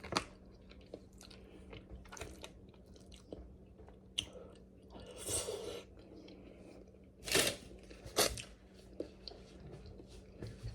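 A person eating king crab legs close to the microphone: chewing and crunching with scattered small clicks of shell, and two louder cracks about seven and eight seconds in.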